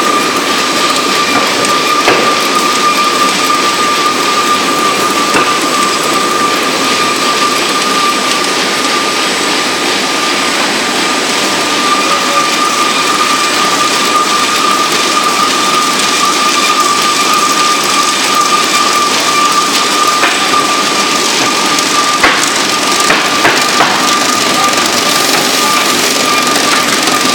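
Petratto folder-gluer running, a steady loud machine noise from its rollers and carrier belts with a constant high whine. A few short clicks come near the end.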